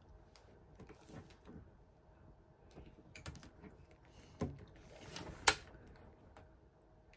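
A tape measure and a diamond painting canvas being handled on a tabletop: faint scattered clicks and rustles, a knock about four and a half seconds in, and a short rustle ending in a sharp click near five and a half seconds.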